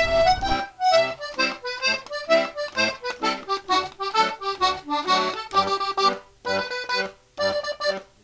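Accordion music laid over the video: a lively tune of many short, detached notes.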